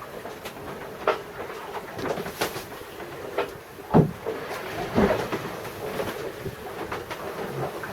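Irregular knocks and clunks aboard a sailboat rolling in swell, over a steady background noise, with two heavier thumps about four and five seconds in.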